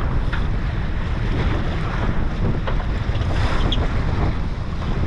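Wind buffeting the microphone over the steady wash of water around a small fishing boat, a continuous low rumble with no single standout event.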